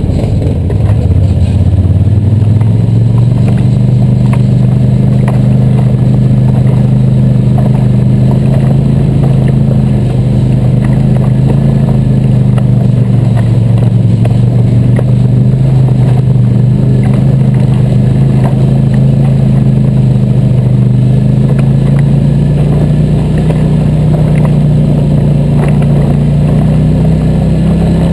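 ATV engine running steadily at moderate throttle while riding a dirt trail; its pitch climbs a little about a second in and again near the end.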